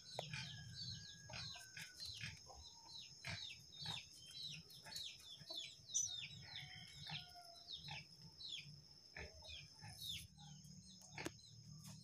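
Nestling birds in a moss nest calling: a rapid, faint run of short, high cheeps, each sliding downward, several a second, with a steady high whine in the background.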